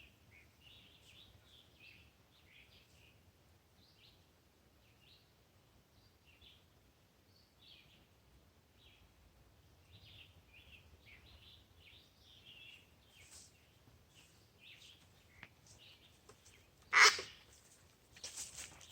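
Small birds chirping, short calls scattered throughout, with one sharp loud knock near the end.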